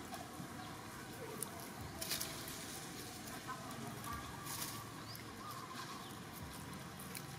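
Outdoor background hiss with a few short rustles and crackles of dry leaves on pavement as macaques shift and move about, the clearest about two seconds in and again past four seconds.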